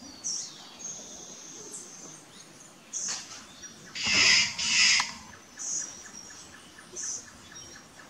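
Green jays giving about six short, harsh calls, the loudest two close together about four seconds in. A thin high whistle holds for about a second near the start.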